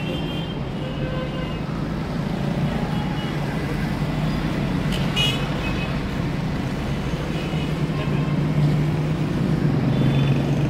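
Street traffic noise with a steady low engine hum, and one short high-pitched sound about five seconds in.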